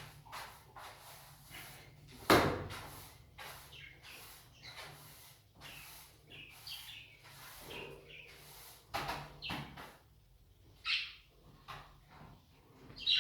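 Budgerigars chirping over knocks and clatter from cage handling, the loudest a sharp knock about two seconds in.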